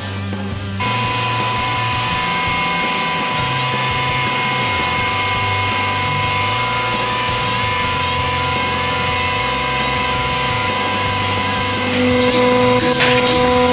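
Hydraulic press pump motor running with a steady whine as the ram descends. About twelve seconds in, plastic clothespins crack and snap as the ram crushes them, and a lower hum joins the whine as the press takes the load.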